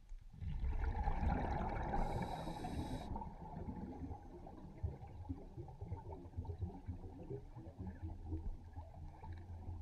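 Muffled, irregular water gurgling and bubbling, with the sound held low and dull.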